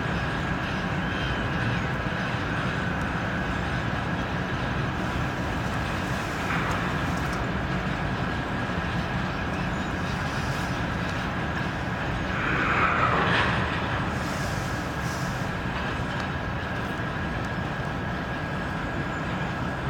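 Freight train of covered hopper wagons rolling past, wheels running steadily over the rails with a steady high tone through it. A brief, louder falling tone comes about two-thirds of the way through.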